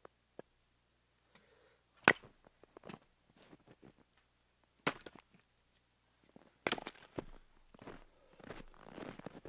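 Hatchet chopping wood: three sharp chops a couple of seconds apart, the first the loudest, with lighter knocks between. Near the end come footsteps crunching through snow.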